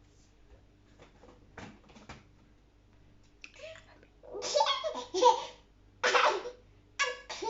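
A young child laughing in three loud bursts from about four seconds in, the last sliding down in pitch.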